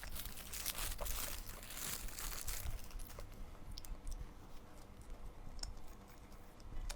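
Close-up chewing and crunching of food, dense and crackly for the first two and a half seconds, then thinning to scattered small clicks.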